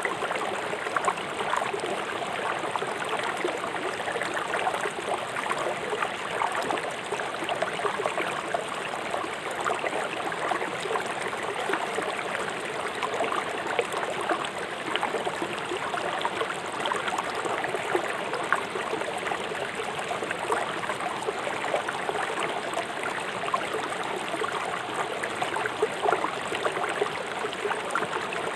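River water rushing fast over rocks: a steady splashing and gurgling rush with fine crackle, unbroken throughout.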